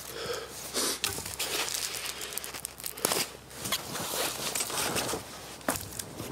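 Crunching and crinkling as a person in a puffy nylon jacket shifts about in snow, the jacket rustling, with a few sharp snaps about a second in, near the middle and near the end.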